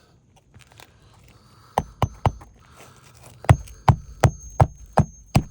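Hammer driving a new roofing nail through an asphalt shingle by hand. There are three quick taps to set the nail, then, after a short pause, six steady blows about a third of a second apart, each leaving a thin metallic ring.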